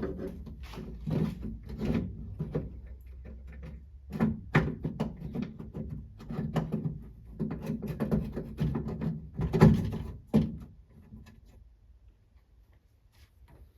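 Metal tools clicking and scraping on a 1966 Ford Mustang door handle's metal retaining clip as it is pried loose, with irregular knocks and rattles of the handle parts. The handling goes quiet a little after ten seconds in.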